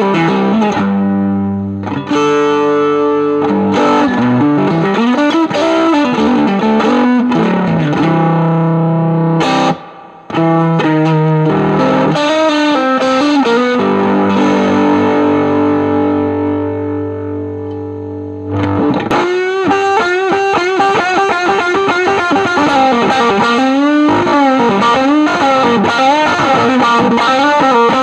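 Strat-style electric guitar played through a Spruce Effects Volcanoes silicon/germanium hybrid fuzz pedal into a Milkman The Amp 100 valve amp, giving a distorted fuzz tone. Held chords ring out, with a short break about ten seconds in and a long chord left to decay. About nineteen seconds in, a busier passage of bending, wavering notes starts.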